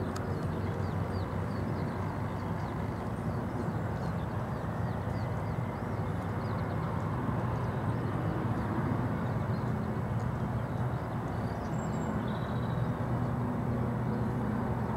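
Steady low diesel engine hum of Oshkosh Striker 3000 airport fire trucks driving along a taxiway, heard at a distance with an even level.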